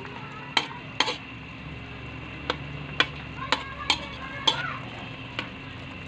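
A cooking utensil clinking and knocking against a pan, about eight sharp strikes at irregular intervals, as food is stirred, with a steady hiss underneath.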